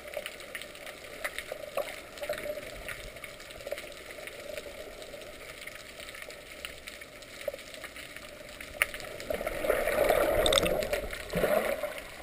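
Underwater ambience heard by a submerged camera: a steady hiss with scattered sharp clicks, swelling into a louder rushing noise about ten seconds in, with a second short rush just after.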